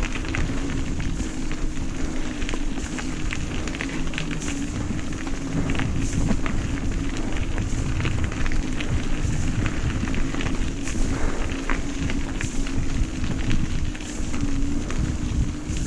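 Riding noise from an electric bike on the move: wind rumbling on the microphone and crackly tyre and road noise, over a steady low hum.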